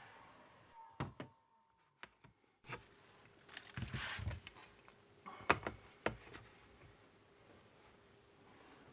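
A few light knocks and clicks from metal parts and tools being handled on a workbench, with a short rustling swell about four seconds in and a faint steady hum underneath.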